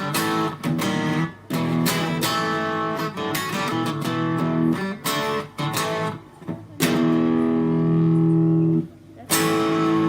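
An FGN Stratocaster electric guitar played through a Fender Studio Valve SVH tube amp, plugged straight in: strummed chords and short picked phrases. Near the end one chord rings for about two seconds, is cut off, and the playing starts again.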